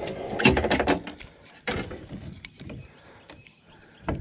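Handling noise from a freshly landed blue catfish held on a lip grip in a boat. A burst of knocking and rustling fills the first second, a single thump comes just under two seconds in, quieter ticks follow, and there is a sharp click near the end.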